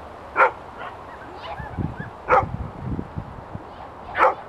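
A Shetland sheepdog barks three short, sharp times, about two seconds apart, while running an agility course, with a few low thuds in between.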